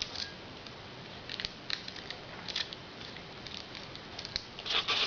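Small scattered clicks, taps and scratchy rustles of hand work on a cylinder-head valve stem while thin tape is wrapped around it, with a short louder rushing noise near the end.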